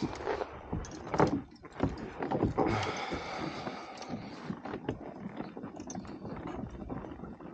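Knocks and rattles of gear handled on a plastic fishing kayak, loudest in the first three seconds, then a softer steady noise with scattered small clicks.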